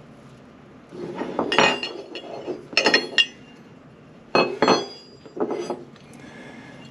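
Metal motorcycle footpegs, the stock peg and a billet Fastway peg, knocking and clinking as they are handled, with a brief metallic ring after each strike. The clinks come in small clusters about a second in, around three seconds in, and again at about four and a half and five and a half seconds.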